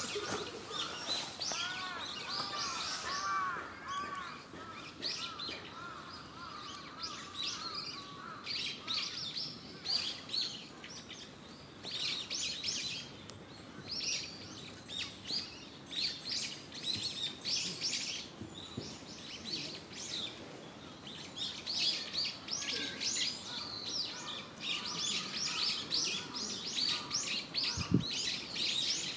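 Small birds chirping and twittering in quick, repeated high calls, with a crow cawing over them in the first few seconds. A brief low thud near the end.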